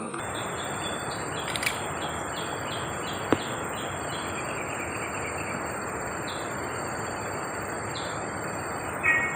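Rural outdoor ambience: a bird gives short, evenly repeated chirps, mostly in the first half, over a steady high insect whine and a constant hiss. A single sharp click comes about three seconds in.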